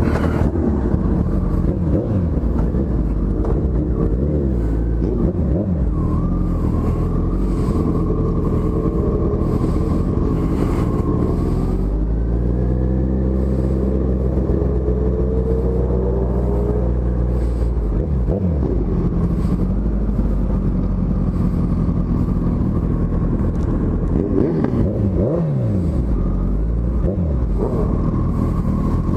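Sport motorcycle engine heard from the rider's seat, running steadily at low speed, then revving up through a long climb in pitch about twelve seconds in and dropping back. Near the end the pitch sweeps up and down again as the rider changes speed.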